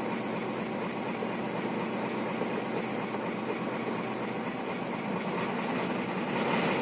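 Hino 500 FM260JD truck's six-cylinder diesel engine idling, heard from inside the cab, picking up a little near the end as the hand throttle is turned up. The revs are raised so the compressor fills the empty air brake tanks.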